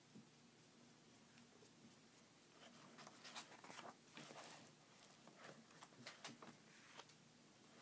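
Paper pages of a thick comic-strip book being turned: faint rustling and crackling of the pages, starting a few seconds in.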